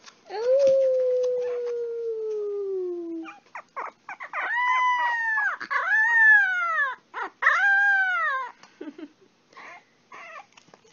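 Puppy howling: one long low howl that slowly falls in pitch, then three higher howls that each rise and fall, with short yips between.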